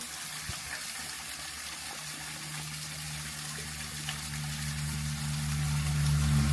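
Shallow stream water running and trickling, with a motor's low hum coming in about two seconds in and growing steadily louder as a vehicle approaches.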